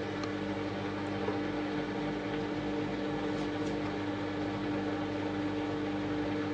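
Washing machine running with a steady motor hum and a few faint ticks.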